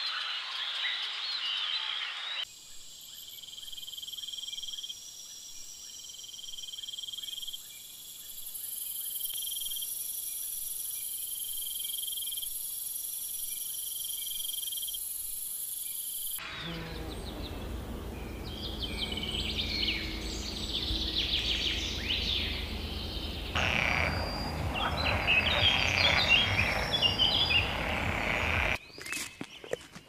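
Natural ambience: a steady chorus of calling frogs and insects, with high trills and one trill switching on and off every couple of seconds. After a sudden cut about halfway, many short bird chirps and calls over a low rumble, loudest near the end.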